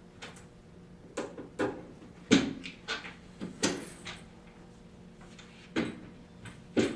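Screwdriver prying the end caps out of an aluminum chaise lounge's frame rails: a series of sharp clicks and knocks, the loudest about two seconds in.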